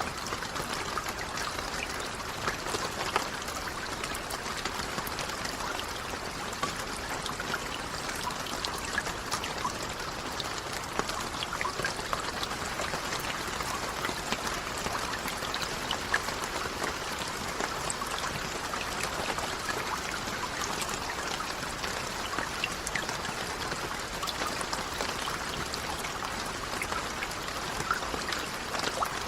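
Steady rainfall: an even hiss thick with many small ticks of individual drops, holding a constant level throughout.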